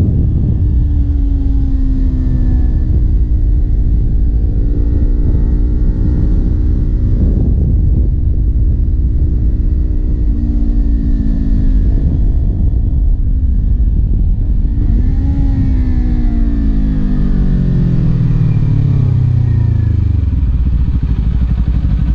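Kawasaki Ninja 400's parallel-twin engine under way on the road. Its note climbs and drops several times with changes in revs, then falls steadily over about four seconds near the end as the revs come down.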